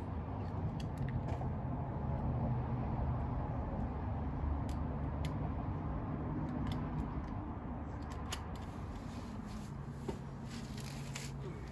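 Scattered light metallic clicks and scrapes of a screwdriver working a snap ring into its groove in a 4WD locking hub, over a steady low hum. The clicks come closer together in the last few seconds.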